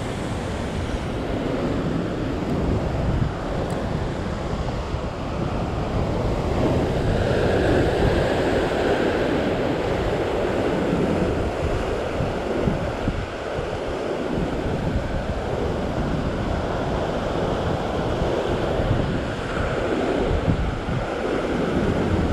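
Ocean surf washing over and breaking against a sandstone rock ledge, swelling louder as a wave breaks about seven seconds in and again near the end, with wind gusting on the microphone.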